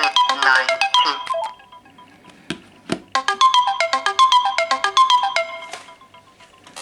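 Samsung Galaxy S4 mini ringtone playing from the phone's speaker: a melody of short bright notes fades out in the first two seconds. Two short knocks follow, then a second phrase of the melody starts about three seconds in and fades out near the end.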